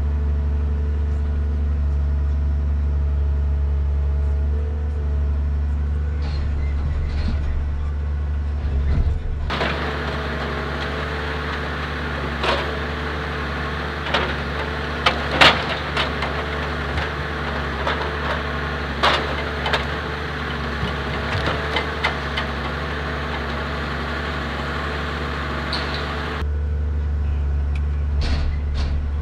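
A Komatsu 875 forwarder's diesel engine runs steadily, a low drone inside the cab. For a long middle stretch the machine is heard from outside, and several sharp knocks come through as logs are handled by the grapple.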